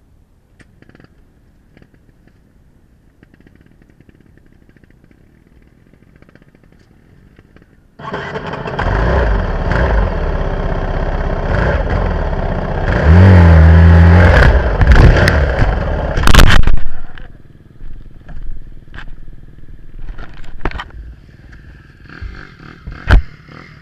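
Dirt bike engine firing up about eight seconds in and running loudly with a strong droning note, revved up for a few seconds, then falling back to uneven, crackling throttle blips as the bike moves off.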